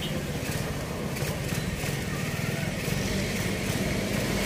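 Rusi Mojo 110's small 108 cc single-cylinder engine idling steadily just after a rebuild and single-to-double-clutch conversion, growing a little louder near the end.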